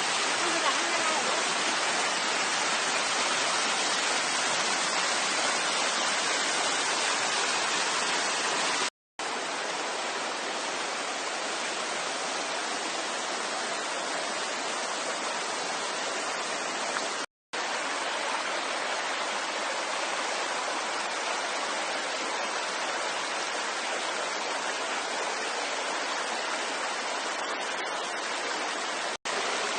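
Small waterfall rushing steadily, with three brief silent gaps where the recording is cut.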